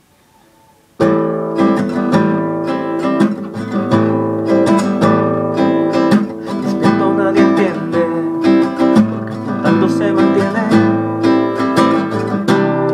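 Classical acoustic guitar playing a chord intro, picked and strummed in a steady flowing rhythm, starting about a second in.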